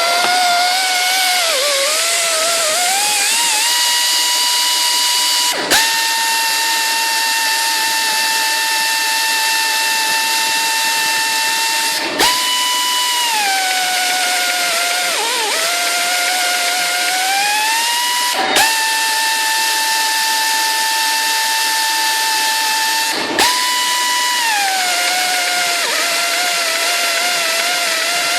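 Air-driven tapping machine (Maxitap AIR 300) running while tapping M12 threads: a steady motor whine over air hiss. Its pitch holds, then sags under load and climbs back. A sharp click comes four times, about every five to six seconds.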